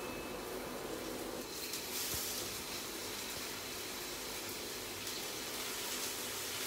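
Scallops sizzling in hot oil in a non-stick frying pan, the hiss getting louder about two seconds in as more scallops are laid in.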